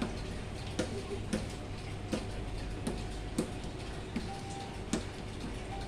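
BCA ATM machine running with a steady hum and faint steady tones, and sharp mechanical clicks about once or twice a second at uneven spacing.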